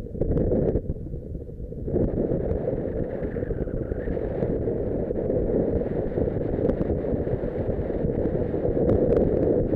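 Wind rushing over an action camera's microphone during a ride, over the dull running noise of the vehicle on the road. The rush drops back for about a second near the start, then returns and stays steady.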